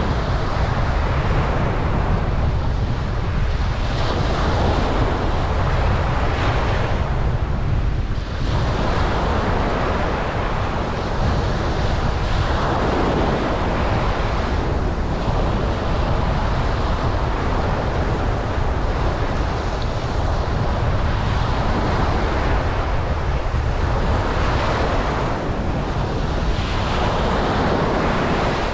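Ocean waves breaking and washing up a beach, the surf swelling and easing every few seconds over a steady low rumble.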